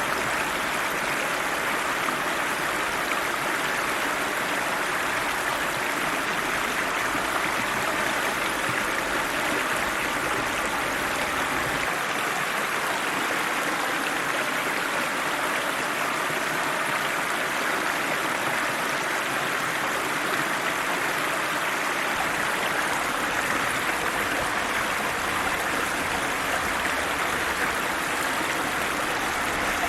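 Cold river water rushing and gurgling steadily over rocks, an even, unbroken flow.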